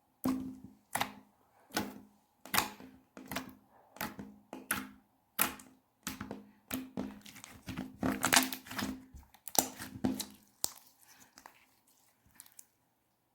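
Hands pressing and folding a clear, slightly jelly-like slime, making a run of sticky clicks and pops about one or two a second, busiest in the middle and thinning out toward the end.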